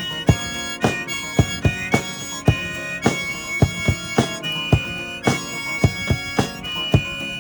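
One-man-band busking music: a harmonica plays held notes over a steady beat struck about twice a second, in an instrumental stretch between sung lines.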